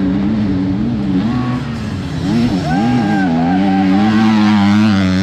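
Enduro motorcycle engine revving hard on a motocross-style test, its pitch dropping and climbing several times as the rider shifts and works the throttle, growing louder in the second half as the bike comes closer.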